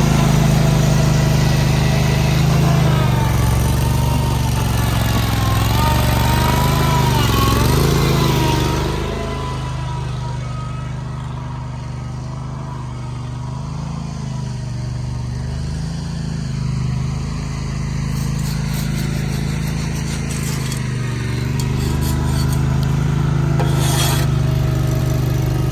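Concrete mixer truck's diesel engine running steadily, with a wavering whine over it for the first several seconds, easing a little in level partway through.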